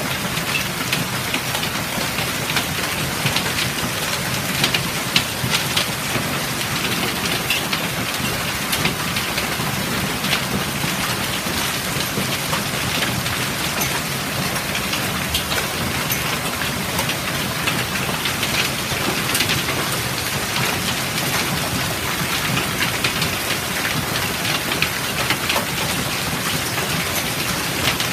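Heavy hailstorm: hailstones pelting grass, pavement and a porch floor, a dense steady patter with many sharp clicks of single stones striking, mixed with rain.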